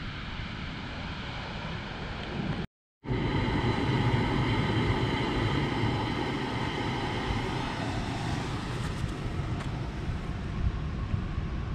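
A steady engine drone mixed with wind noise, with a faint tonal hum running through it. The sound cuts to dead silence for a split second about three seconds in, then carries on.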